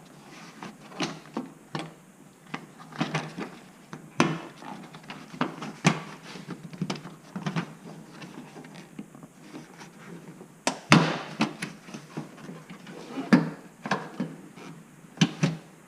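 Hands and hand tools working on a car's trim and clips: irregular knocks, clicks and light scrapes, the loudest knock about eleven seconds in.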